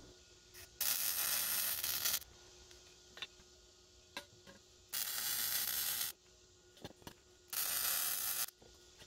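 Wire-feed welder laying three short welds on steel tubing, each about a second of steady crackling hiss, with a few faint clicks in the pauses between.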